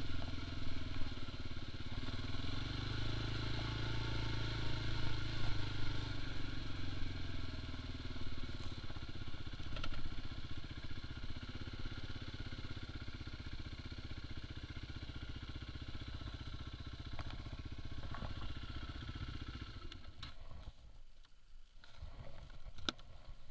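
Kymco MXU quad bike's engine running while riding over a rough track. Its note rises over the first few seconds, then holds steady, and drops away briefly near the end.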